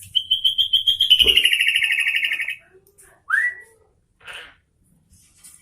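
Sooty-headed bulbul (kutilang) singing: a fast trill of about ten notes a second lasting some two and a half seconds and easing slightly down in pitch, then a single rising note and a softer call. A dull low thump sounds about a second in.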